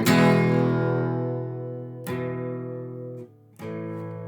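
Closing bars of a song: guitar chords struck and left to ring out, three times, with a brief break just before the last one.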